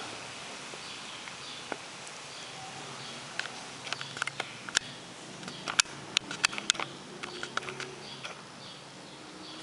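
Mondial Maxi Power table fan running with a steady airy hiss. A burst of sharp, irregular clicks and taps comes through the middle.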